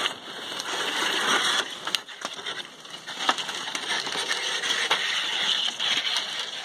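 Crunching and scraping over ice and snow as a dog sled's runners and boots move across the frozen river, with scattered sharp crackles.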